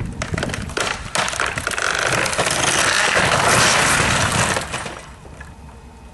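Small wood-frame shed collapsing: a run of sharp cracks and snaps of breaking timber, then a long, loud crashing and crunching as the shingled roof comes down. It dies away about five seconds in.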